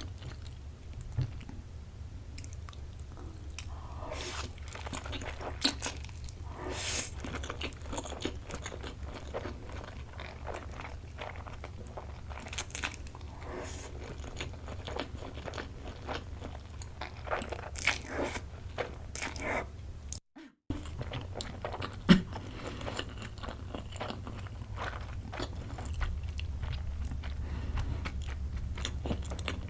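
Close-miked eating of Korean hot noodles: irregular chewing, biting and wet mouth sounds with occasional longer smears, over a steady low hum. One sharp click stands out about two-thirds of the way through.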